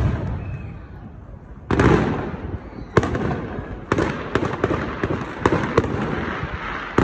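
Aerial firework shells bursting: booms about two, three and four seconds in, followed by a run of sharp cracks and crackles.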